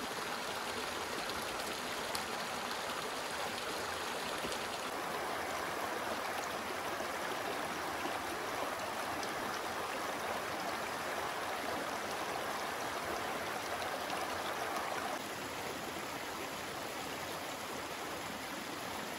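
Shallow rocky creek running, water pouring over a small cascade between boulders in a steady rush. The sound shifts abruptly in tone about five seconds in and drops slightly in level about fifteen seconds in.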